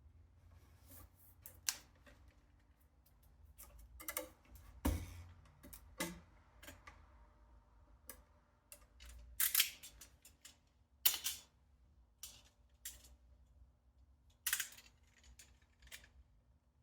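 Scattered clicks and small knocks from tools and small parts being handled while wiring up the saw, over a faint steady hum.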